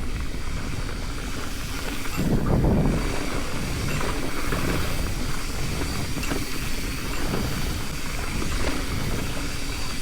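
Mountain bike riding downhill over rough dirt trail: wind rushing over the microphone with the rumble of the tyres and faint clicks and rattles from the bike over rocks.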